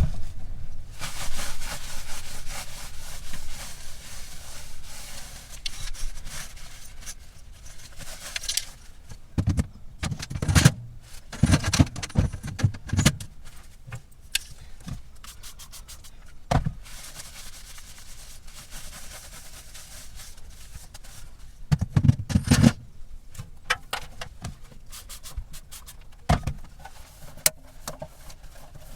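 Cleaning and handling inside a fridge. First a long stretch of rubbing and scraping, like wiping or scrubbing, then a series of knocks and thuds as jars and fridge items are moved and set down. The thuds are loudest about ten to thirteen seconds in and again around twenty-two seconds in.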